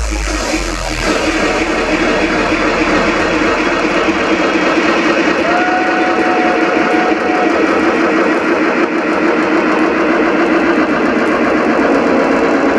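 Loud electronic dance music over a festival sound system, in a breakdown: the deep kick and bass drop out about a second in, leaving steady sustained chords, with one held higher note near the middle.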